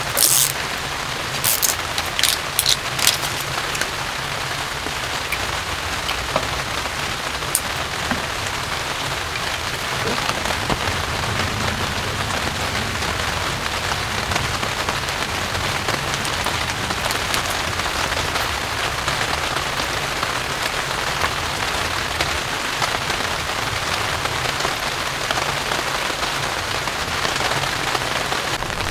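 Heavy rain falling steadily on a surface, with a few sharp ticks in the first three seconds and one more a few seconds later.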